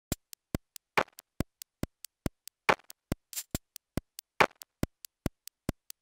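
A ticking sound effect: sharp, evenly spaced clicks about four to five a second, with a louder, longer hit every eighth tick.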